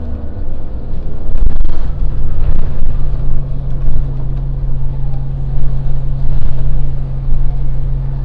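Engine and drivetrain of a 2010 Orion VII NG transit bus, heard from inside the cabin as the bus runs, with a steady low drone setting in about two seconds in.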